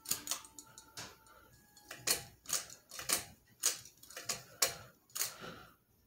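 Ceiling fan pull-chain switches clicking as the chains are pulled: about ten sharp clicks, roughly one every half second, the switch working through its light and speed positions.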